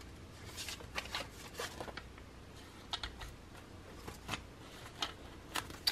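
Paper banknotes being handled and leafed through by hand: faint, scattered rustles and flicks of the bills.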